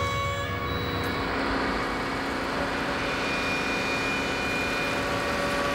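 Boat's marine diesel engine running in the engine room: a loud, steady mechanical din, with a few steady held tones over it that come and go.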